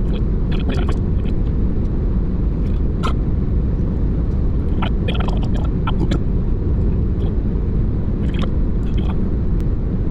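Steady low rumble of road and engine noise inside a moving car, with a few brief higher-pitched sounds scattered over it.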